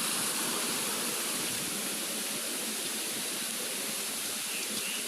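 Steady rushing of water from a small waterfall.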